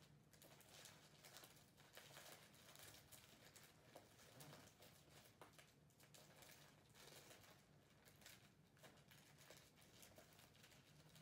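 Faint rustling and crinkling of wrapping paper being handled while a present is wrapped, with scattered small clicks and crackles.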